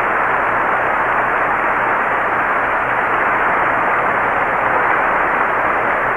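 Steady hiss of recording noise on a 1936 radio broadcast recording, with no music or voice.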